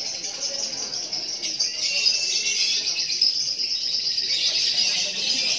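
Lovebird singing a long, unbroken, rapid chattering trill, the 'ngekek' on which contest lovebirds are timed for duration.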